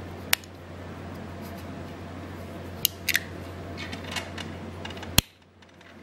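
Sharp metal clicks from a Leatherman Bond multi-tool being handled, its implements snapping open and shut. There is a single click, then a pair about three seconds in, a run of lighter clicks, and a loud snap about five seconds in, over a steady low hum.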